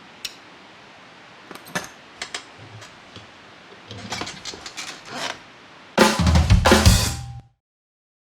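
Drum kit played with Pearl drumsticks, starting with a few scattered strokes over a steady hiss and building into busier hits. About six seconds in comes a loud fill with bass drum, which cuts off abruptly into silence.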